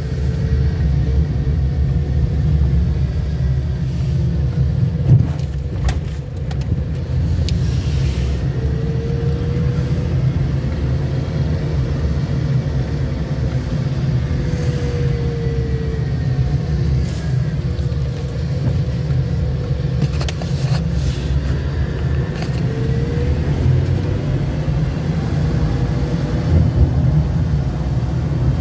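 Car engine and tyres heard from inside the cabin as a steady low rumble while creeping in slow traffic, the engine note rising and falling gently a few times, with a few faint clicks.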